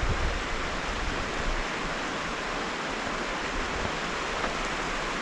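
Steady rushing of a creek or falls, an even hiss of running water, with a brief low buffet of wind on the microphone right at the start.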